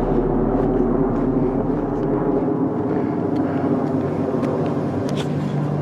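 Steady drone of an aircraft passing overhead, with a low hum that fades out about two and a half seconds in.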